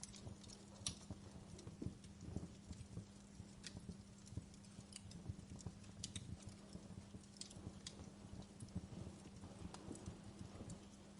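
Wood fire crackling faintly: sharp, irregular snaps and pops over a soft low flutter, with a faint steady hum underneath.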